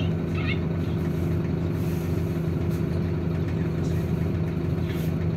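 MAZ city bus's diesel engine idling steadily with a constant low hum, heard from inside the passenger cabin while the bus stands still.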